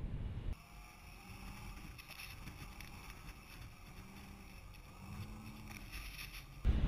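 2013 Range Rover's engine driving on sand dunes, heard faint and muffled through a camera mounted on the car's body, its revs rising and falling several times. A louder low rumble cuts off about half a second in, and another cuts in near the end.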